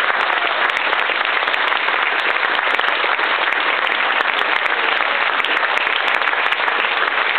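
Audience applauding: a steady round of clapping from a large crowd.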